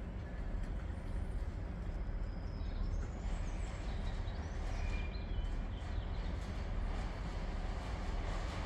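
Low, steady rumble of an unseen train in the distance, with a few faint high squeals or chirps about three to six seconds in.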